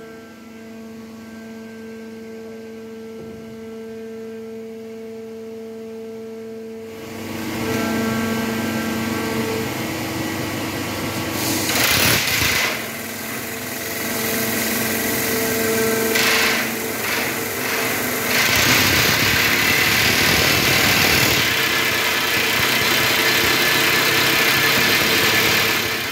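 Tamrock hydraulic rock-drilling jumbo running with a steady hum, then about seven seconds in its drill starts boring into the tunnel rock, loud and noisy, with surges and a fuller steady din near the end. It is drilling holes for rock bolts.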